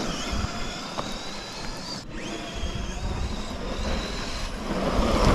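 Whine of the HSP Brontosaurus 1/10 RC monster truck's brushless electric motor as the truck drives off up the road, the pitch rising and falling with the throttle over a steady hiss. The freshly repaired rear diff is holding under power, with no slipping.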